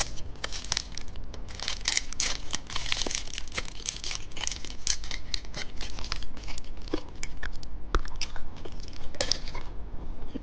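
A candy wrapper crinkling and tearing as it is unwrapped by hand, with a dense run of crackles that stops shortly before the end.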